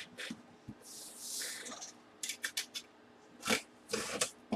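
A cardboard box being handled and opened by hand: scattered scrapes, rubs and clicks against the cardboard, with a longer hissing rub about a second in.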